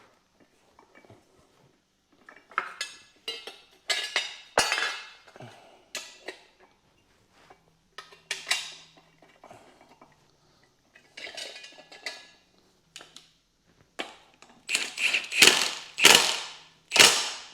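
Metal clanks and knocks as a new rubber engine mount is fitted onto its steel bracket: irregular strikes and clinks of metal parts and tools, with a burst of heavier knocks near the end.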